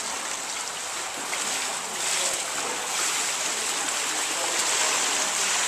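Swimming-pool water sloshing and splashing, heard as a steady rushing noise that grows a little louder about two seconds in.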